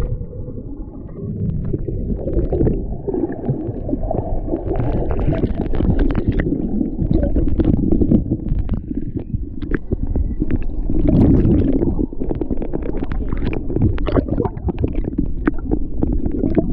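Water movement heard underwater: a steady low rumble and gurgling of churned water and bubbles from swimmers kicking, with many short sharp clicks scattered throughout.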